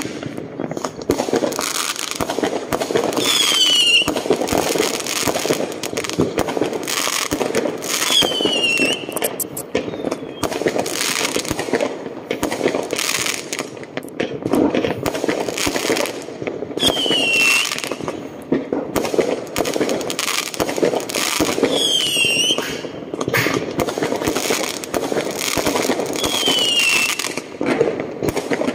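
New Year fireworks: a continuous run of many overlapping bangs and crackles over a rumble. A short high whistle falling in pitch sounds about every four to five seconds.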